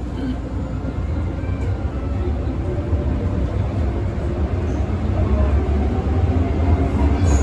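MTR M-train running, a steady low rumble with a faint whine that grows gradually louder.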